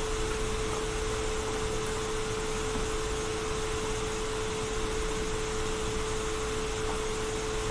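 Steady background hiss with a constant hum tone running through it. It is unchanging throughout, the noise floor of a desktop recording setup.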